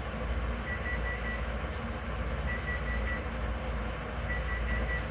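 An electronic alarm beeping in quick sets of four, the set repeating about every two seconds, over a steady low rumble.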